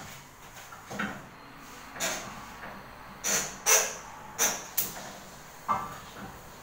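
Kitchen clatter: about seven sharp knocks and clinks at uneven intervals, with a quicker run of four in the middle, the loudest near the middle.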